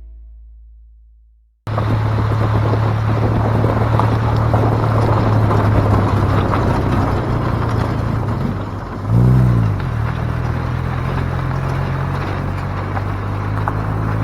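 Background music fades out, then a car is heard driving: steady engine hum and road noise. About two-thirds of the way through, a brief louder sound rises and falls in pitch.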